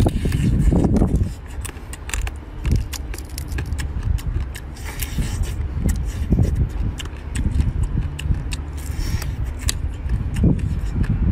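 Eating a cooked stone crab by hand: pieces of crab shell cracking and being picked apart in many short, sharp clicks and cracks, with chewing and sucking of the meat, over a steady low background rumble.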